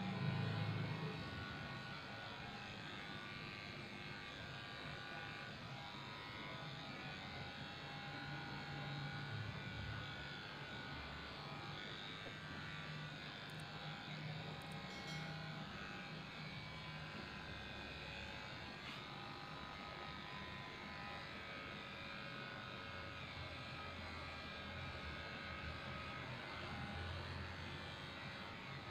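Electric pet grooming clippers running steadily, shaving a dog's coat down.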